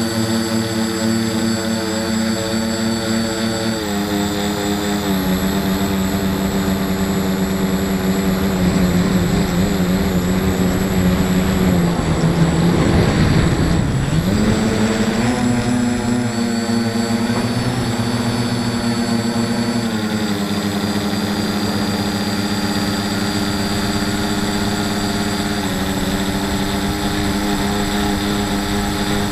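Tricopter's brushless motors and propellers whining steadily, heard from on board the craft. The pitch steps up and down with throttle changes, dropping sharply and climbing back about 13 seconds in.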